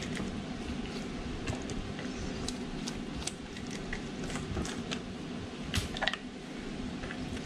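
Granulated sugar being sprinkled over an egg-washed lattice pie crust: faint, irregular light ticks scattered through, over a steady low hum.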